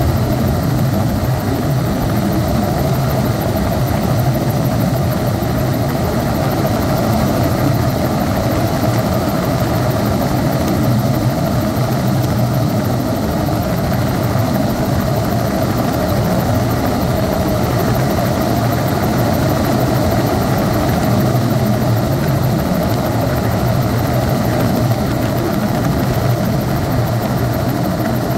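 Helicopter running steadily in flight, heard from inside the cabin: a constant, loud rotor and engine drone.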